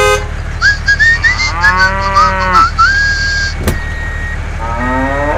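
Two long, low animal calls like a cow's moo, one arching up and down about two seconds in and one rising near the end, over a steady low engine rumble. There are short high whistling chirps in the first three seconds and a single click in the middle.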